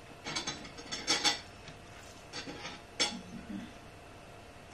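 Cutlery clinking and scraping against dishes in a few short strokes, the loudest about a second in, with another near three seconds.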